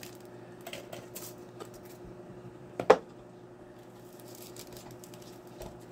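Faint crinkling of iridescent nail transfer foil and its clear plastic packaging being handled by fingers, with one sharp click about three seconds in, over a faint steady hum.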